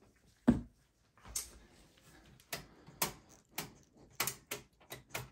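Handling clicks and knocks inside a desktop PC's metal case as a small network expansion card is worked out of its slot: one sharp knock about half a second in, then a string of lighter clicks.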